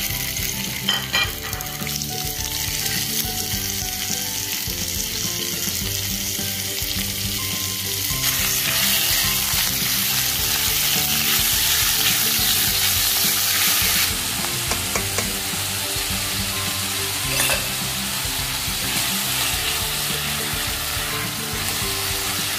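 Chicken pieces sizzling in hot oil in a nonstick frying pan, stirred now and then with a silicone spatula. The sizzle is louder for several seconds in the middle.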